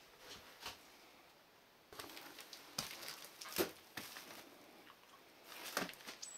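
Irregular footsteps and small crunches and knocks of debris underfoot on a littered floor, the sharpest knock about halfway through and a short cluster near the end.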